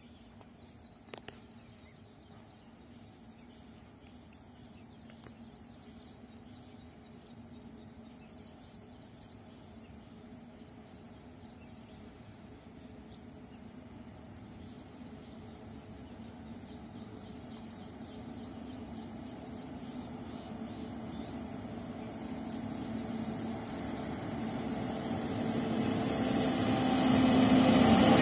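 Indian Railways electric locomotive approaching on the track, its rumble growing steadily louder until it is loud as the locomotive arrives at the end. Crickets chirp faintly in the background at first, and there is a short click about a second in.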